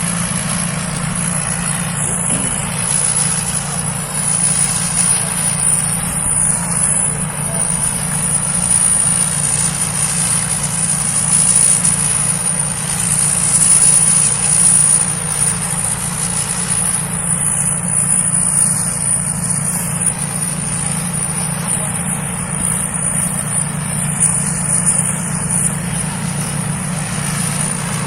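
Thai Seng Yont rice combine harvester running steadily, its engine a constant low drone with a thin high whine above it.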